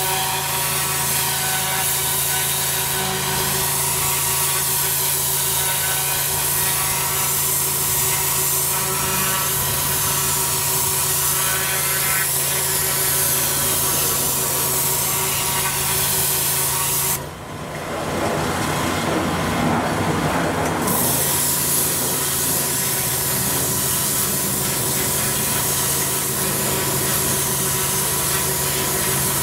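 Pressure washer running with a steady hum under the hiss of a twin-headed turbo lance blasting water onto block paving to strip moss and dirt. A little over halfway through, the spray hiss drops away for a few seconds and the sound goes rougher, then the steady jet-washing returns.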